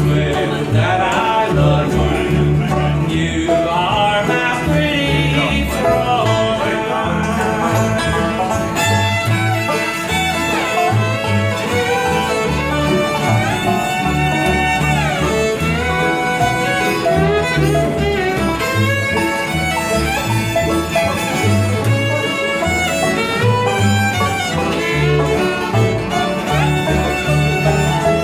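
Live country band playing an instrumental break led by fiddle, with sliding, bending fiddle lines over banjo, guitar and a steady pulsing bass line.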